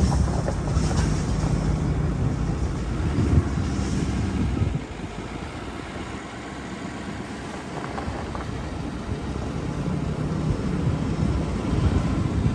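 A vehicle engine running with some wind noise on the microphone. It is loud at first, drops off about five seconds in, and builds up again near the end.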